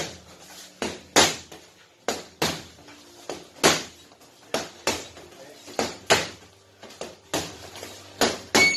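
Boxing gloves landing punches in sparring: a dozen or so sharp slaps at irregular intervals. A steady high electronic tone begins near the end.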